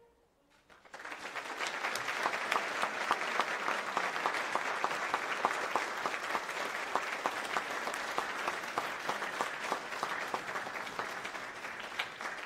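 Audience applauding after a performance, starting about a second in after a short hush and continuing steadily, with many individual claps standing out.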